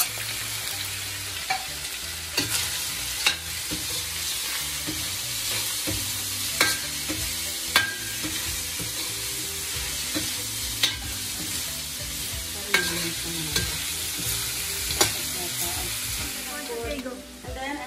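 Shredded chicken frying in oil in a stainless steel wok with a steady sizzle, stirred with a spatula that knocks and scrapes against the wok every second or two.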